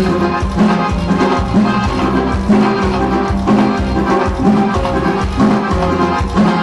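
Loud dance music with a steady drum beat and a bass line that repeats in a regular pulse.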